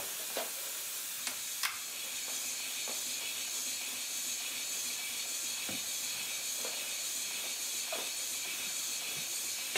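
Steady hiss of compressed air leaking around the makeshift air-line tubing, old electrical-wire insulation, that feeds a 5-inch gauge Stirling Single model locomotive chassis running on air. A few faint clicks can be heard.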